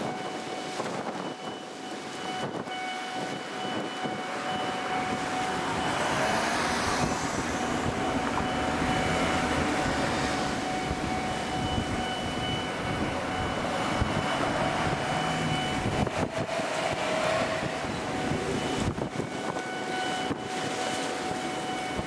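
Japanese railway level-crossing alarm ringing steadily while an electric train passes over the crossing; the train's rumble and wheel noise swell for about twelve seconds in the middle. The alarm stops near the end. Strong wind buffets the microphone throughout.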